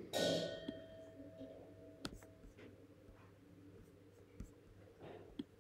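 A short scratchy rustle just after the start, then a few faint, sharp computer mouse clicks as spreadsheet cells are selected, over a low steady hum.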